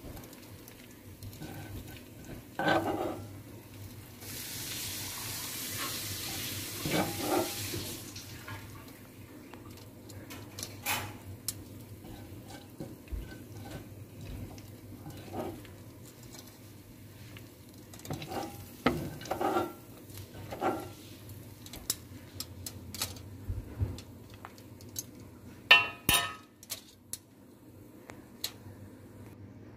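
Kitchen clatter: scattered knocks and clinks of dishes and utensils, with a steady hiss lasting about four seconds near the start and one loud ringing clink of crockery near the end.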